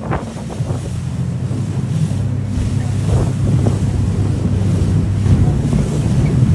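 Boat engine running steadily at speed as a low drone, with wind buffeting the microphone and water rushing past the hull.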